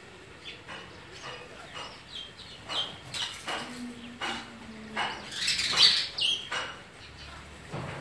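Sparrows chirping: many short, sharp chirps at irregular intervals, busiest around the middle, with a flutter of wings as a bird flies in near the end.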